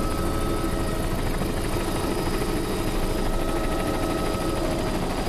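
Helicopter cabin noise: a steady drone of rotor and engine, with a few steady whining tones over it.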